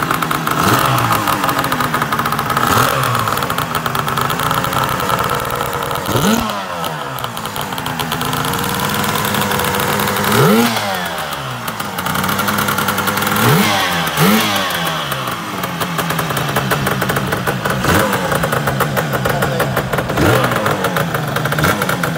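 Lambretta TargaTwin 275cc twin-cylinder two-stroke scooter engine running on its first start after new carburettor floats were fitted. The throttle is blipped about half a dozen times, the revs rising sharply and falling back between stretches of running.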